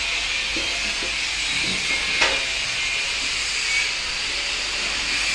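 A steady hiss, with one sharp tick about two seconds in.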